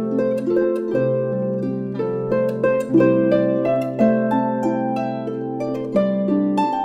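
Solo harp playing: a run of plucked notes, each ringing on, over low bass notes.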